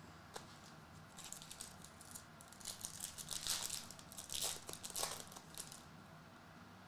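Faint crinkling and crackling of a trading-card pack wrapper being handled and torn open, busiest in the middle, with a small click near the start.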